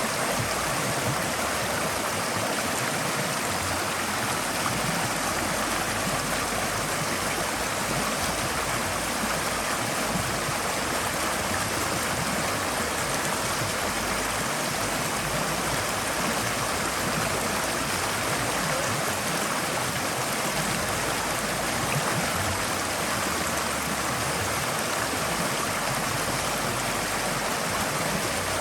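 Forest stream flowing steadily over rocks: a continuous, even rush and babble of water.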